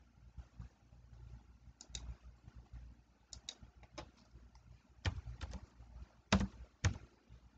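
Computer keyboard keystrokes typed one at a time: about ten separate clicks, spaced unevenly, the loudest a little past six seconds in.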